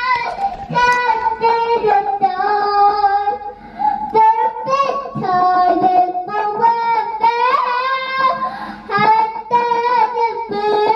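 A young girl singing into a karaoke machine's microphone: a high, childish melody in phrases of long held notes with short breaks for breath.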